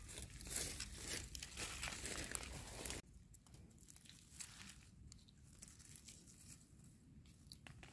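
Dry leaf litter and gravelly soil rustling and crunching as a hand digs small mushrooms out of the ground. The scraping is steady for about three seconds, then drops suddenly to faint, scattered rustles.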